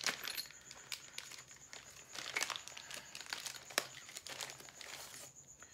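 Packaging being opened and handled: irregular crinkling and rustling with small clicks as a boxed Harley-Davidson axle cover assembly kit is unpacked and its parts are taken out.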